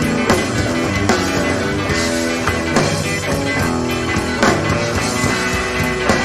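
Live rock band playing the song's boogie-rhythm arrangement as an instrumental passage with no singing: electric guitars over bass and drums, heard straight from the soundboard mix.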